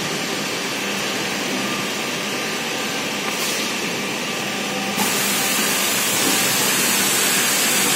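Steady machine hum and air hiss from a six-head panel boring machine. About five seconds in, a louder, sharper hiss starts suddenly and holds.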